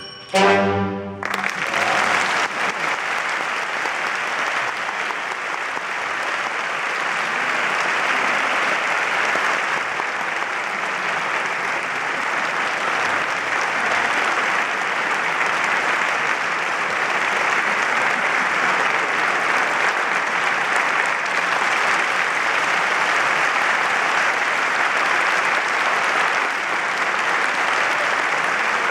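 The orchestra plays a short final chord about a second in, then the audience applauds steadily.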